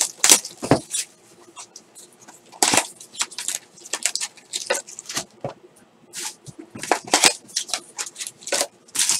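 Plastic wrap crinkling and tearing and cardboard rustling as a Topps Finest baseball card box is opened and a wrapped mini box is pulled out, in irregular bursts with short pauses between.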